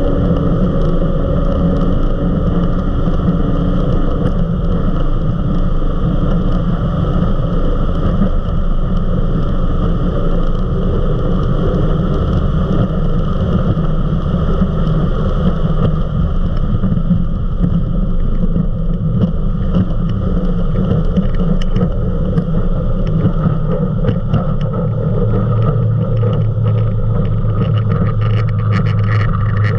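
Eliminator 31 XO Speedster performance powerboat running flat out with a steady engine drone and rushing wind and water. Near the end the throttle comes back as the boat slows, the engine note settles lower and steadier, and the hull slaps the water several times.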